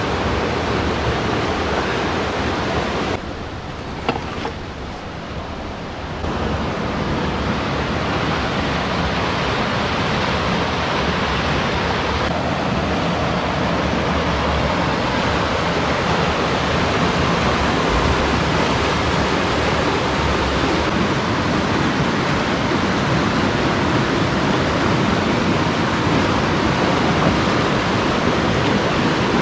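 River water rushing steadily over rocks and small rapids. It drops quieter for about three seconds, starting about three seconds in.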